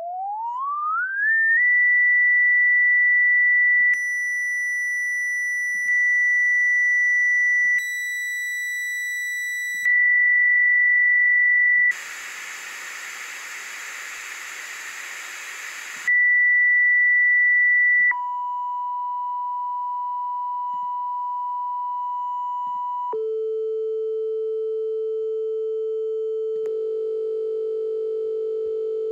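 Synthesized test tone from an online tinnitus-matching tone generator. A pure sine tone glides up to about 2,000 Hz and holds there, its timbre switching every couple of seconds through square, triangle, sawtooth and filtered waveforms, then becomes a steady hiss of noise for about four seconds. It returns to the pure tone, steps down to about 1,000 Hz, then to 440 Hz (A4) with buzzier waveforms.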